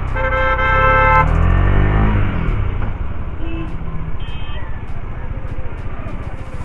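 A vehicle horn sounds for about a second over the pulsing of a KTM Duke 250's single-cylinder engine, which then revs up as the motorcycle pulls away into traffic. Two short high beeps follow a few seconds later.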